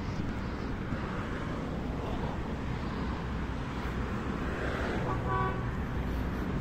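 Steady road traffic noise, with a short car horn toot about five seconds in.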